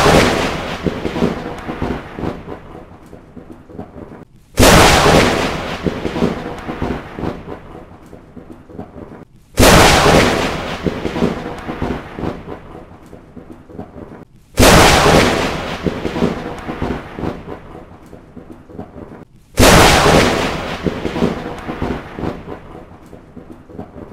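Thunderclaps, each a sharp crack followed by a crackling rumble that dies away over about four seconds. The same clap comes five times, every five seconds, like a looped thunder sound effect.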